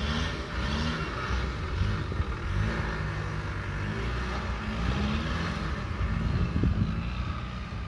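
Land Rover Defender 300Tdi's four-cylinder turbodiesel working under load as the pickup crawls up a rough, muddy off-road slope, its revs rising and dropping back again and again with the throttle. A few short knocks come about six and a half seconds in.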